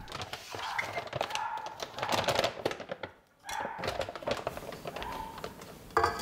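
Rapid light clicks, taps and knocks of kitchen preparation: a pancake mix box and ingredient bottles being handled over a steel mixer bowl while pancake batter is made.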